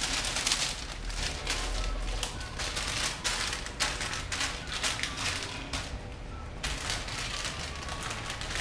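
Parchment paper crinkling and rustling in irregular crackles as a sheet is laid over dough and smoothed flat by hand, then a wooden rolling pin pressed across it.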